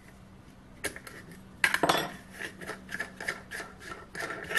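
Small steel parts clinking and scraping as a pin wrench and the flange nut of a drill grinding-disc arbor are worked by hand: a run of light clicks, with a louder clatter about two seconds in.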